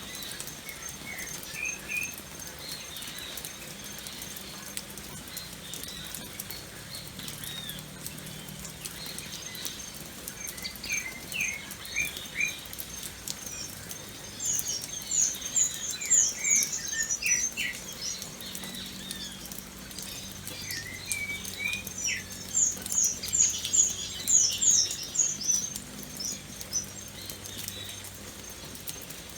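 Light rain pattering steadily, with birds chirping throughout. Two runs of rapid high chirps, about halfway through and again near the end, are the loudest sounds.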